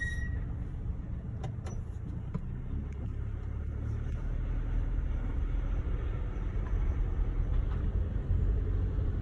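Mercedes GLC rolling, with a steady low rumble of road and engine noise and no brake squeal; a couple of faint ticks about a second and a half in.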